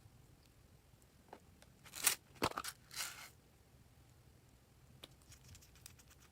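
Slime being handled by hand, giving a cluster of sharp crackling and popping clicks about two seconds in that lasts just over a second. A few fainter clicks follow near the end.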